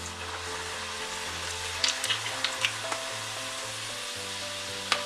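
Gujiyas (stuffed semolina-khoya pastries) sizzling steadily as they deep-fry in hot oil in a kadhai, with a few sharp crackling pops about two seconds in and another near the end.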